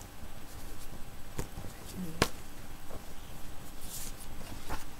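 Sheets of paper and brochures being handled and gathered into a packet: a few sharp taps and knocks, the loudest about two seconds in, and a short paper rustle near the end.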